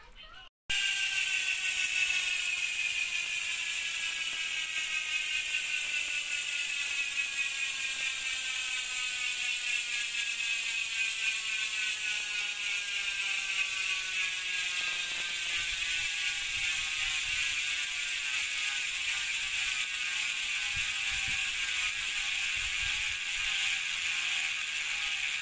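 Hassns Pro 7 bicycle rear hub freewheeling with its six pawls ratcheting as the rear wheel spins freely: a loud, fast, even buzz that starts suddenly about a second in and slowly falls in pitch as the wheel slows.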